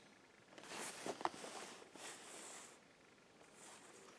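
Faint rustling of a sheet of notepaper being handled and moved over a cardboard board, with a light tap about a second in.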